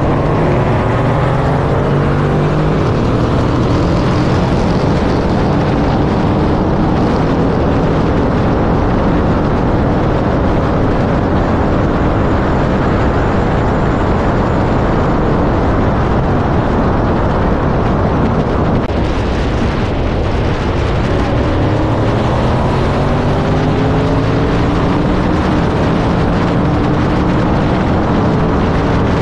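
Twin-turbo V8 car at full throttle in a roll race, its engine note climbing steadily under heavy wind rush on a camera mounted outside the car. About two-thirds of the way through the pitch drops briefly, as at a gear change, then climbs again.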